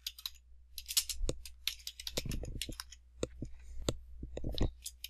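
Computer keyboard typing and mouse clicks: a run of quick, irregular clicks.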